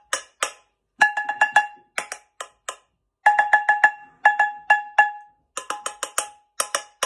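A wooden spatula beating a metal saucepan in short rhythmic phrases of quick strikes with gaps between. Hits on the base of the pan ring with a clear metallic tone, while hits on other parts of the pan sound drier and duller.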